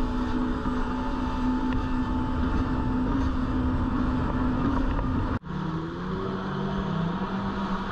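Jet ski engine running steadily at speed, with water rushing and spraying around the hull. About five seconds in the sound breaks off sharply, and an engine then runs at a lower pitch that wavers up and down.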